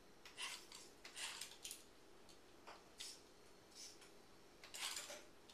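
Servo motors of a TETRIX robot arm moving in short, faint bursts, about six in all, each a fraction of a second long, over a faint steady hum.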